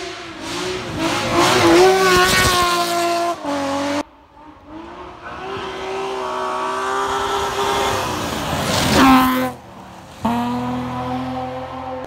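Rally cars at high revs on a gravel stage. Three passes are edited together, with the engine note climbing as each car nears. The sound peaks as cars pass close by about two and nine seconds in.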